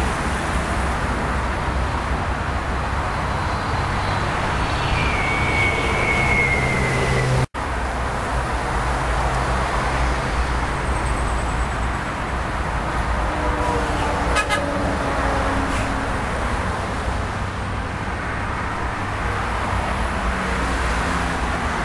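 Steady outdoor rumble of road traffic, with a short horn-like tone about five to seven seconds in. The sound cuts out for an instant about seven and a half seconds in.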